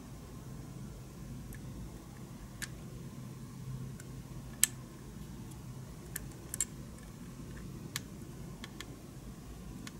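Sparse, light clicks and ticks of fingers handling a small model car's plastic body, the sharpest about four and a half seconds in, over a low steady hum.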